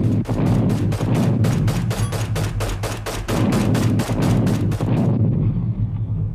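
Rapid gunfire, about six shots a second, over a steady low rumble of battle; the shooting stops about five seconds in and the rumble fades away.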